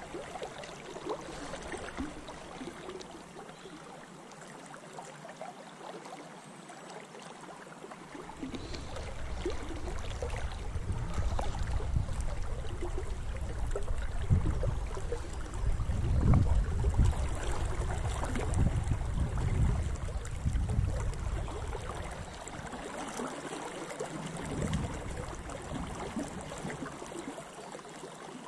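Fast-flowing water of a river in spate, rushing and lapping close by, with a low rumble that swells about a third of the way in and eases near the end.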